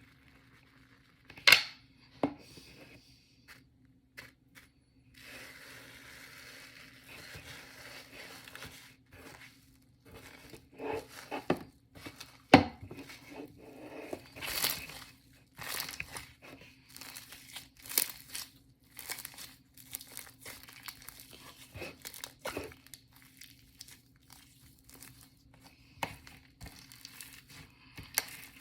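Shaving-foam marbling slime being handled: sticky crackling, popping and sharp clicks, irregular throughout. A steady hiss runs for about four seconds near the start.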